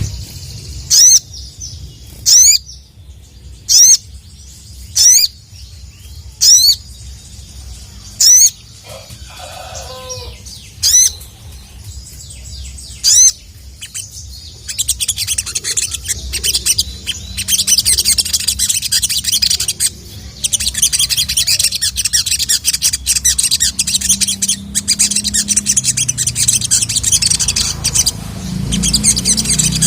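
Male sogon (sogok ontong sunbird) singing. About eight loud, sharp 'cuit' notes come a second or two apart, then it breaks into a fast, continuous high twittering song for the second half.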